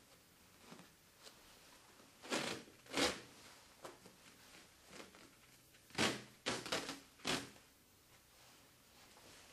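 Red cohesive bandage being pulled off its roll and wrapped around a splinted dog's leg, making brief crackling peels. There are two peels about two to three seconds in and a quick cluster of them between six and seven and a half seconds.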